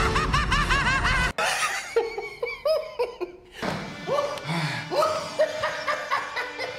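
The cartoon Joker's rapid, high-pitched cackle over a low rumble, cut off abruptly about a second in. Then the live-action Joker's lower, slower laughter, coming in uneven bursts with a brief pause midway.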